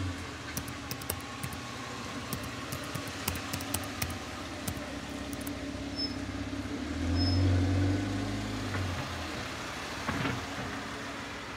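Motor vehicle running with a steady low hum, scattered small clicks and rattles, and a louder low rumble swelling and fading about seven to eight seconds in.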